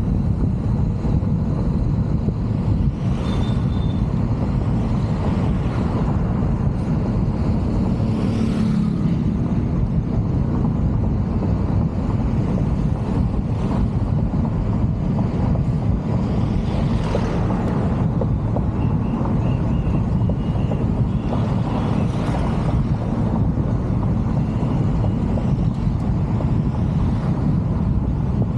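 A car driving along a city road, heard through an outside-mounted camera's microphone: steady wind rush on the microphone and road noise, with a few short, faint high beeps.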